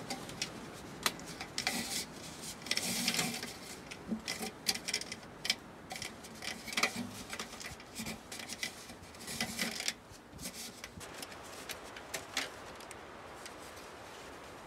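Flexible corrugated aluminium chimney duct crinkling and clicking as it is pulled out and bent by hand, a run of irregular sharp crackles that thins out about ten seconds in.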